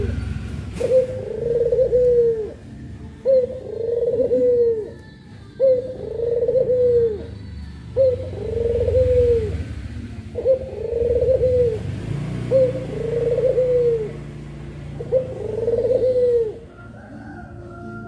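Puter pelung, a long-cooing variety of Barbary dove, giving a steady series of coos, one roughly every two seconds, each swelling and falling away. The cooing stops shortly before the end.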